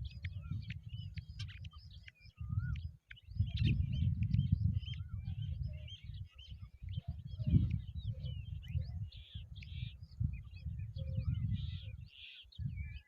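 Many small birds chirping and calling in quick, overlapping short notes, over a gusty low rumble of wind on the microphone that comes and goes.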